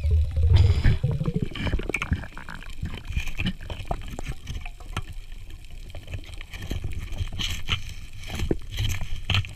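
Underwater sound picked up by a diver's camera: muffled gurgling and bubbling water, with a low rumble in the first second and scattered clicks and knocks throughout.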